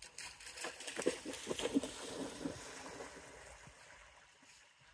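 Water splashing and sloshing as a dog swims and paddles, busiest in the first three seconds and then dying down.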